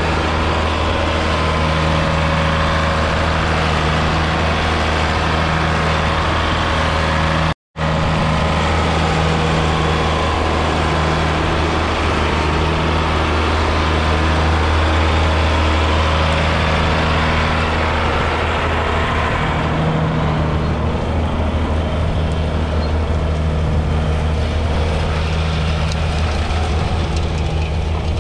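1982 John Deere 4040's 5.9-litre six-cylinder diesel engine running steadily with a deep, even hum, broken by a momentary gap in the sound about seven seconds in. The sound thins a little in its upper range about twenty seconds in.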